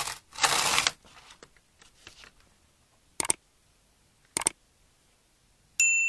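A short rustle of plastic sheeting in the first second, then two sharp clicks about a second apart and, near the end, a bright bell-like ding held for about a second: the mouse-click and bell sounds of an on-screen subscribe and like button animation.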